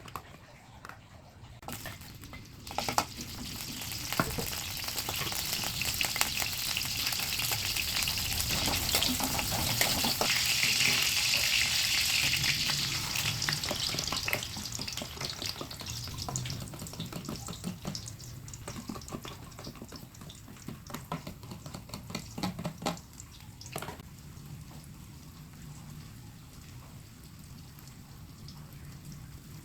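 Vegetable omelette mixture frying in a pan. The sizzle builds over a few seconds, is loudest around ten seconds in, then slowly dies down, with a few sharp knocks near the start and again later.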